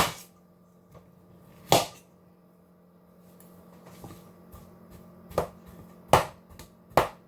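Five sharp knocks and clinks of a pot and utensils being handled on the stove, spread out with gaps between them, over a steady low hum.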